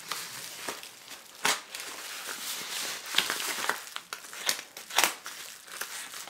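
Yellow plastic padded mailer sealed with duct tape crinkling and crackling as hands work it open, with a few sharp snaps of the packaging.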